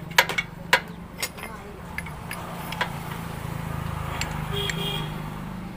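Steel hand tools clinking: a tubular box spanner and tommy bar knocking against each other and the clutch centre nut on a motorcycle clutch. There are a series of sharp metallic clicks, the loudest in the first second and a half, over a steady low hum.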